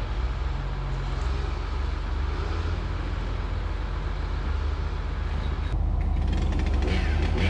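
Diesel engine of a tracked logging machine idling, a steady low drone. It becomes louder and closer about three-quarters of the way through.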